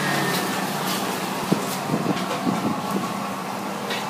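Shop-house kitchen noise: a steady hum with a few sharp clatters of utensils and dishes, most of them between about a second and a half and three seconds in.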